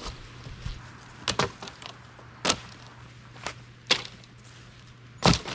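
Dry sticks snapping and cracking as firewood is gathered: six or so sharp cracks at uneven spacing, the loudest near the end.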